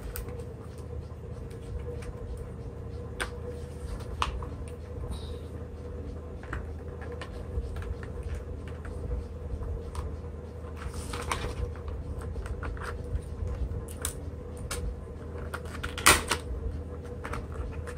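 A plastic pry pick worked into the seam of a power bank's plastic case: irregular small clicks and scrapes as the case's clips are levered apart, with a sharper cluster of snaps near the end.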